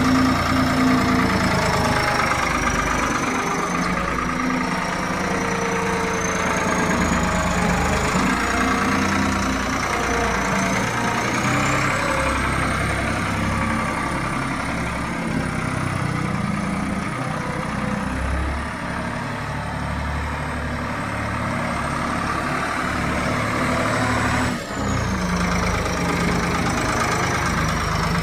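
UNC 080 skid-steer loader's Zetor three-cylinder turbo diesel running, its engine note shifting as it works. A high thin whine climbs about twelve seconds in and falls again near the end, where the level briefly dips.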